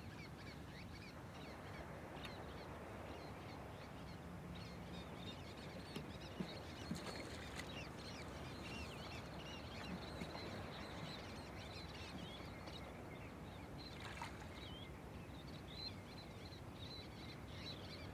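Faint chirping of many birds, short high calls coming thick and steady over a low outdoor hiss. A few light ticks or small splashes stand out near the middle.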